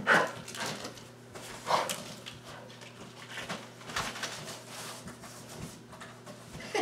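A pit bull nosing into a cardboard box: short, uneven bursts of cardboard and packaging rustling and scraping as its head pushes in and the box shifts.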